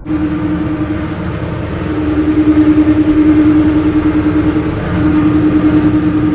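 Farm machinery engine running steadily with a strong, even hum and a fast pulse, getting louder about two seconds in.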